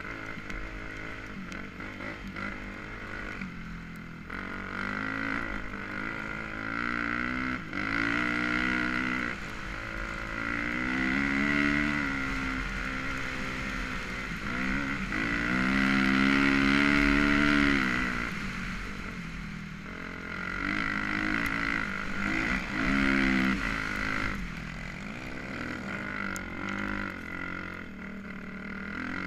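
Dirt bike engine, heard from the rider's own seat, revving up and down as the throttle is rolled on and off. The revs climb highest and loudest for a couple of seconds a little past the middle.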